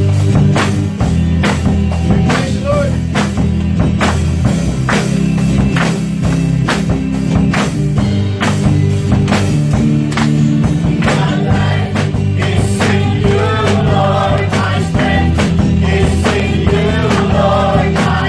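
Live worship band playing: an acoustic drum kit keeping a steady beat of about two strikes a second over sustained low bass notes, with singing joining about eleven seconds in.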